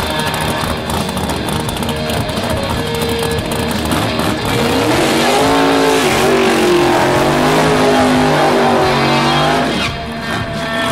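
1963 Ford Falcon Sprint drag car's engine revving hard for about five seconds from a little before the middle, its pitch rising and falling as it spins the rear tyres in a smoky burnout, then dropping away near the end.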